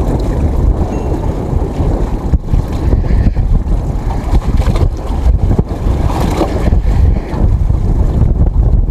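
Wind buffeting the microphone: a loud, uneven low rumble with no engine tone in it.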